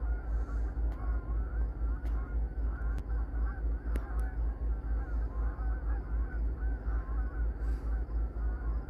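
A flock of Canada geese honking continuously, many calls overlapping, over a low pulsing rumble.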